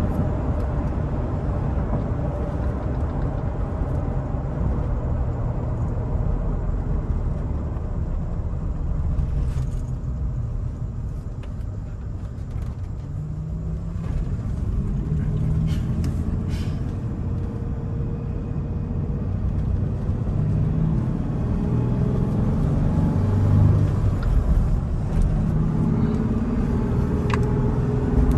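Cab interior of a 2003 Toyota Tacoma five-speed manual 4WD pickup on the move: steady engine and road noise that eases off and gets quieter about a third of the way in, then the engine's low drone builds again as the truck accelerates through the second half.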